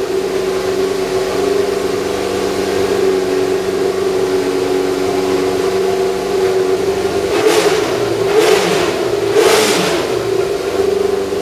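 Tyrrell P34's Ford Cosworth DFV V8 running at steady revs, then three sharp throttle blips about a second apart near the end.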